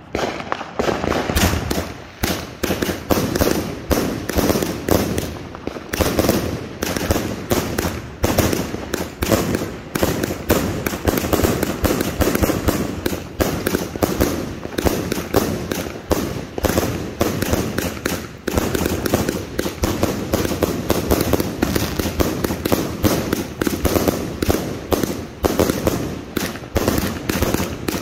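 Aerial fireworks going off in rapid succession: a continuous string of launch thumps and crackling bursts, several a second, without a pause.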